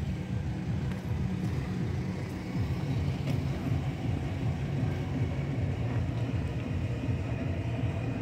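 A steady low rumble that wavers in strength, with a few faint clicks.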